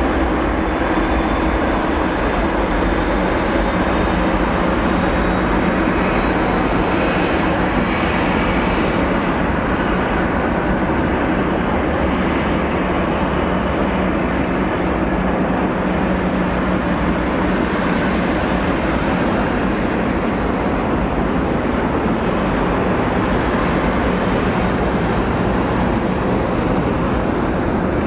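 Jet airliner engines running loudly and steadily, a continuous rushing noise with a faint high whine that fades over the first several seconds.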